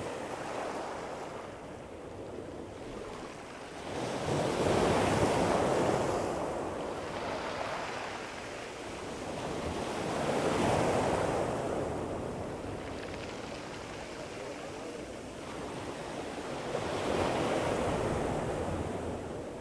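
Black Sea waves breaking and washing on the shore, rising three times about six to seven seconds apart. Wind buffets the microphone.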